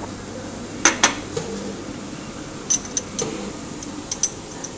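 Porcelain espresso cup, saucer and metal teaspoon clinking on a stone bar counter: two sharp clinks about a second in, then a few lighter clinks as the saucer is handled. A steady low hum runs underneath.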